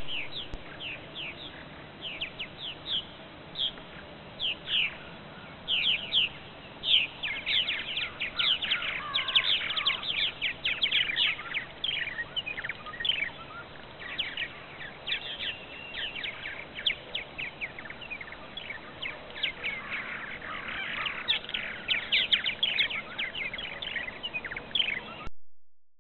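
A colony of purple martins at a gourd house calling, many short downward-sweeping chirps overlapping in a busy chatter that swells twice. It cuts off abruptly near the end.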